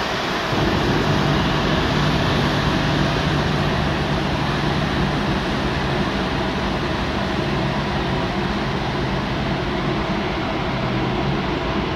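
Steady drone of marine engines at speed, a low hum over wind rushing across the microphone.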